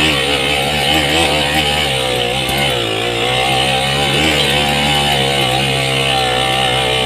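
Yamaha 80cc motorcycle engine running loudly and steadily under load, its pitch wavering slightly, with a brief dip about three seconds in.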